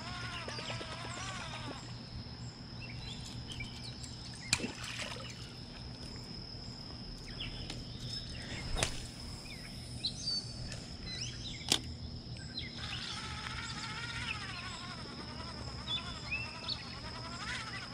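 Outdoor ambience with a steady high-pitched insect drone. A warbling animal call comes at the start and again from about 13 seconds in, and three sharp clicks are spread through the middle.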